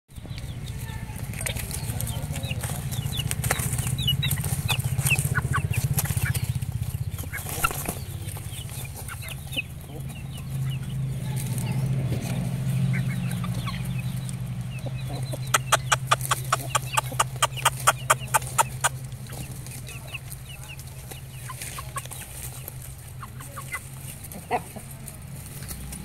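Black Patta Kondai chickens clucking and calling softly while foraging, with a rapid run of sharp notes a little past the middle, over a steady low hum.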